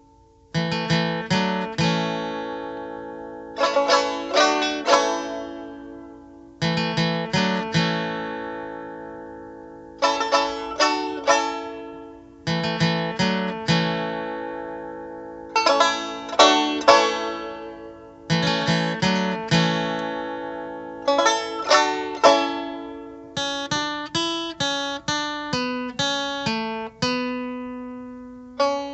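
Instrumental music on a solo plucked string instrument. Short runs of notes are picked every two to three seconds and each is left to ring out and fade, with quicker single notes near the end.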